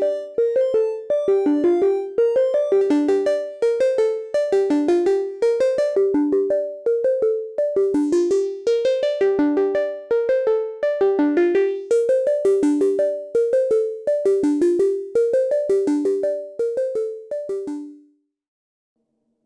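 Vector digital synthesizer playing a fast, repeating pattern of short, plucked-sounding notes that each die away quickly; the pattern stops about 18 seconds in.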